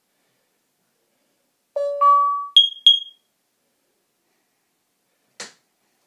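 Nest Protect smoke and carbon monoxide alarm chiming from its speaker as its alarm test finishes: a low note, then a note an octave higher, then two quick high pings. A single click follows near the end.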